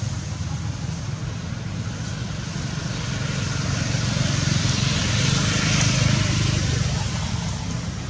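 A steady low rumble with a hiss over it, growing louder from about three seconds in, peaking around six seconds and easing off near the end.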